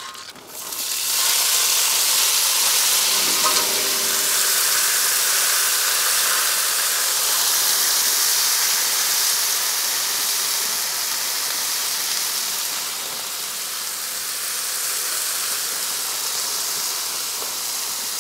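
Wok vegetables poured onto a hot, oiled Muurikka steel griddle pan, sizzling loudly and steadily in the oil. The sizzle comes up sharply about half a second in.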